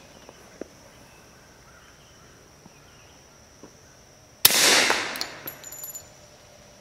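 One suppressed shot from a .45 ACP 1911 pistol with an AAC Tyrant suppressor, firing subsonic 230-grain ball, about four and a half seconds in: a sharp crack that dies away over about a second and a half. Before it there are only a faint click or two from handling the pistol.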